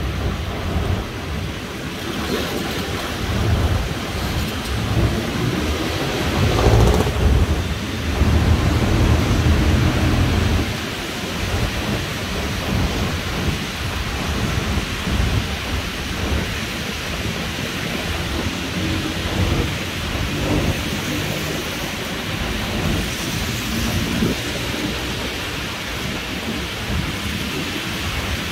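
Traffic on a rain-wet city avenue: a steady hiss of rain and tyres on wet road under a low rumble of traffic that swells about six to ten seconds in.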